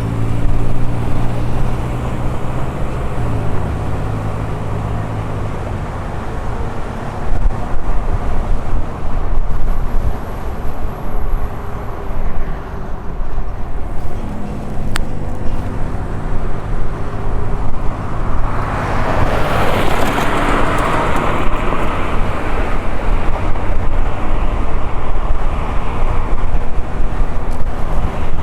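Ride noise on a moving electric unicycle: steady wind and road rumble with a low hum. About two-thirds of the way through, a louder rushing noise swells up and fades.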